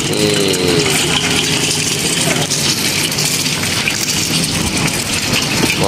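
An egg frying in hot oil in a steel wok: a steady sizzle, over a steady low hum.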